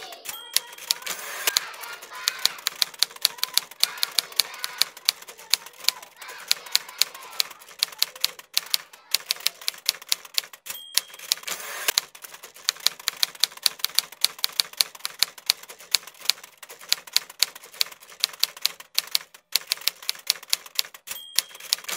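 Typewriter keys clacking at an uneven typing pace, broken by a few short pauses, with a brief ring about half a second in, again about ten and a half seconds in, and near the end.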